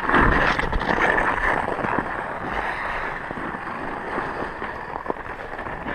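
Ice skate blades gliding and scraping over rough outdoor ice, a steady hiss with wind on the microphone, easing off a little toward the end. A single sharp click comes about five seconds in.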